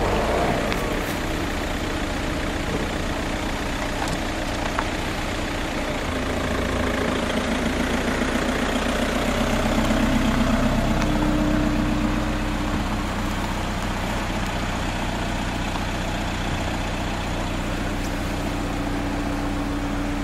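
A motor vehicle engine running steadily over a constant rushing noise; its hum rises in pitch and grows louder about halfway through, then eases back to a steady tone.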